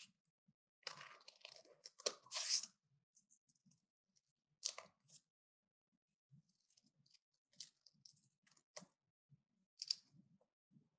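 Scissors cutting paper, with the paper crackling as it is handled: a run of crinkling about a second in, then single sharp snips every second or two.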